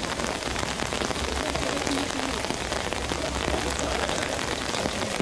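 Steady rain falling, a dense even patter of drops on wet ground and foliage.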